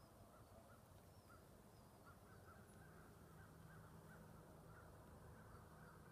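Near silence: faint outdoor ambience with many faint short chirps, a few a second, over a low steady hum.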